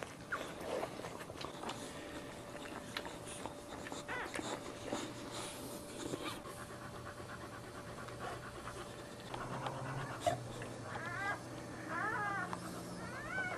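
Boxer bitch panting hard during whelping. Newborn puppies give several short high squeaks in the last few seconds.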